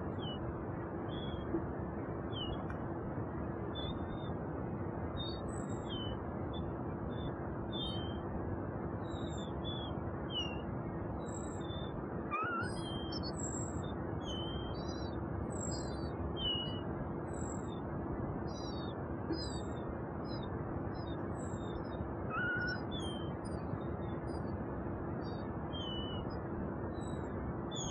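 Songbird nestlings about eight days old cheeping in the nest: a scatter of short, high chirps, at times several a second, over a steady hiss and a low hum.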